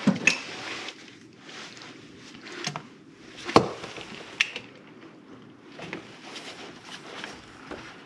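Irregular clicks and knocks of hands and tools working on the engine, the loudest about three and a half seconds in.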